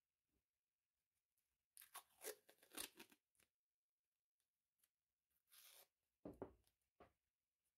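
Paper and tissue lens wrapping rustling and crinkling as it is handled, in two short bouts, with a soft knock at the start of the second.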